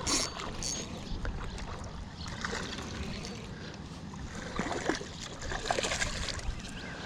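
Steady rush of water pouring through the dam spillway, with a low rumble, and a few short clicks and taps in the second half.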